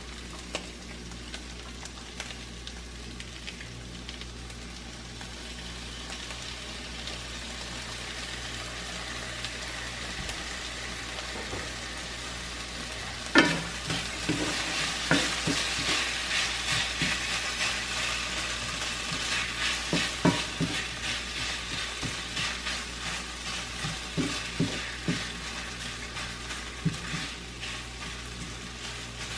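Kimchi pork fried rice sizzling in a nonstick pan while being stirred with a wooden spatula. About halfway through, liquid goes into the hot pan and the sizzle turns suddenly louder and brighter, with spatula scrapes and taps against the pan.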